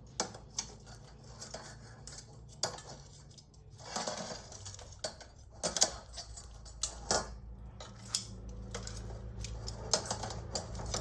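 Metal utensils clinking and scraping against a grill and dish in irregular clicks as grilled sardines are lifted off, with a short scrape about four seconds in.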